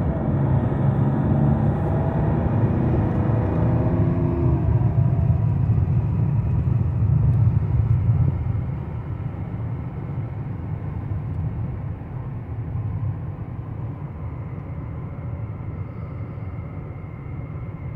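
Cabin sound of a Mercedes-Benz E320 CDI turbodiesel under way: a low engine drone and rumble with road noise. About eight seconds in it drops to a quieter, steady road and tyre noise, as with the car coasting or cruising off the throttle.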